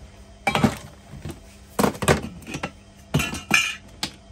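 Small plumbing fittings clinking and rattling together as they are rummaged through by hand, in three short bursts.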